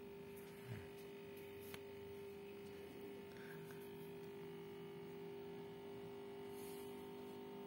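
A faint steady hum, with a few soft clicks.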